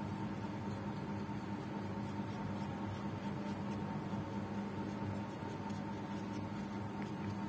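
Steady, unchanging hum with an even hiss underneath.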